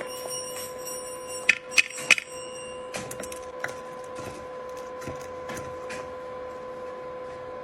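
A series of sharp clicks and taps, three loud ones close together about a second and a half in, then lighter scattered clicks, over a steady electrical hum.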